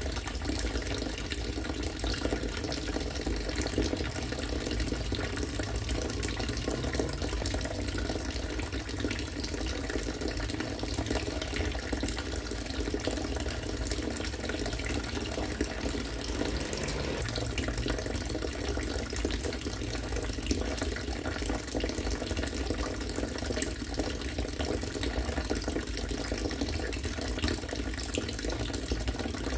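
Collected rainwater falling in a steady stream and splashing.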